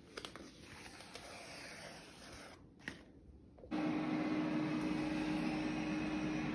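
A few faint clicks over low noise, then about halfway through a steady machine hum with one constant low tone starts suddenly and keeps going.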